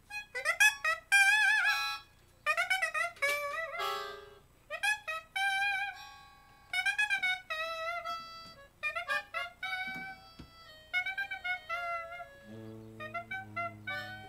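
Live jazz: a high, wavering wind-instrument melody played in short phrases with gaps between them, and Rhodes electric piano chords coming in underneath near the end.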